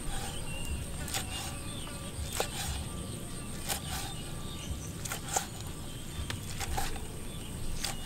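Long kitchen knife slicing through soft cooked meat and tapping down on a wooden cutting board: sharp, irregular knocks, about one or two a second.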